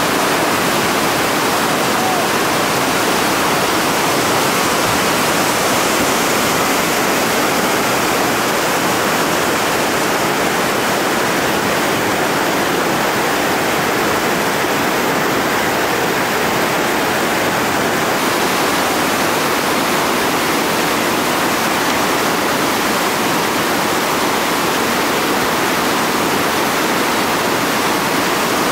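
Whitewater rapids and a small falls rushing in a steady, loud, unbroken roar of churning water.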